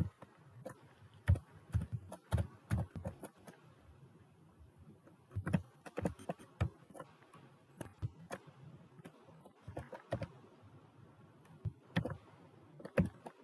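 Computer keyboard being typed on: irregular bursts of key clicks with short pauses between, as an email address and a password are entered.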